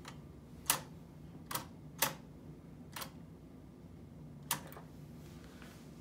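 Five sharp, irregularly spaced clicks from the mechanism of an Oliver typewriter during a ribbon vibrator adjustment, over a faint low hum.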